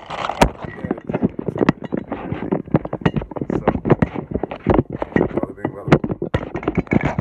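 Phone microphone handling noise: rapid, irregular knocks and rubbing as the phone is juggled in one hand and brushes against skin, with muffled talk underneath.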